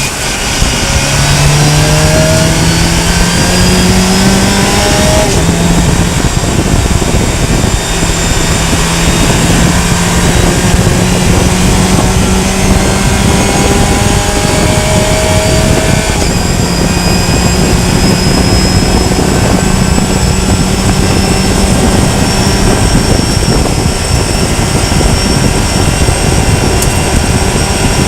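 Fun Cup race car engine pulling hard through the gears, its pitch climbing and dropping at each upshift in the first few seconds, then held at high revs for a long stretch with another shift about halfway through. Throughout there is a heavy rush of wind and road noise.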